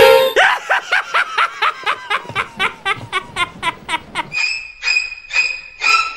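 A fast run of short, high, squeaky pitched calls, about five a second, each dipping in pitch, for about four seconds. Then it switches to a pulsing steady tone, about three pulses a second.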